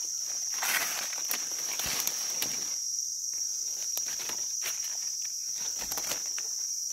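A steady high-pitched insect drone, with irregular rustling and crackling of dry leaf litter as small mushrooms are dug out by hand from the forest floor.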